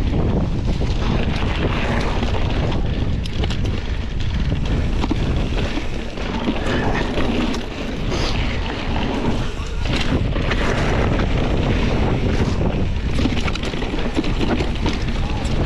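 Wind buffeting the microphone of a mountain bike's point-of-view camera as the bike rolls fast down a gravel and dirt trail, with the rumble of knobbly tyres on the loose surface and scattered knocks and rattles from the bike over bumps.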